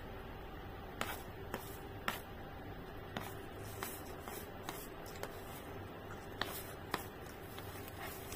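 Metal spoon clicking and scraping against a plastic sheet as rice is scooped up for eating, a sharp click roughly once a second.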